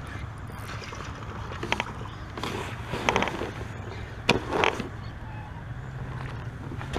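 Handling noise on a fishing kayak: a series of knocks and rattles, the sharpest about four seconds in, over a steady low rumble.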